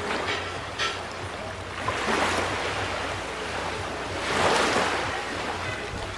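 Small waves washing onto a sandy beach in a steady hiss that surges twice, about two seconds in and more strongly about four and a half seconds in.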